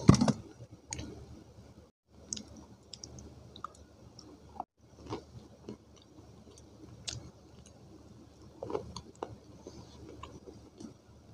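A person bites into a dry slab of multani mitti (fuller's earth clay), with one loud crunch right at the start. Then comes close-miked chewing, with scattered small crunches and clicks.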